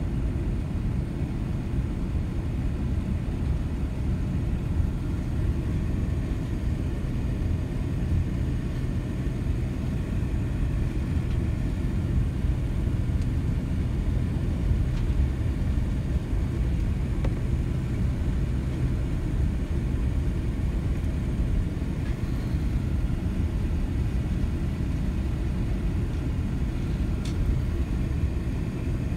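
Steady low rumble heard inside the cabin of a Boeing 787-10 taxiing: the engines at idle and the wheels rolling over the taxiway.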